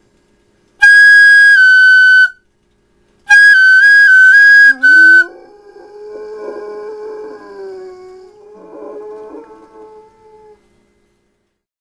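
A flute plays two loud phrases of high notes stepping between two close pitches, and a large dog answers with two long low howls that slide up from a deep start and then hold. The flute is louder than the howls.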